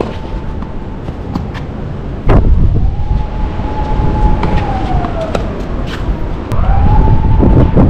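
A siren wailing: it rises to a steady tone, holds for about two seconds, glides down, and rises again near the end. Over it come sharp tennis-ball strikes from a rally, and from about two seconds in wind buffets the microphone.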